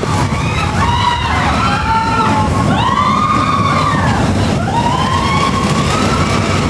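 Roller coaster train running along its track with a steady rumble, over which several high whines rise and fall, each about a second long.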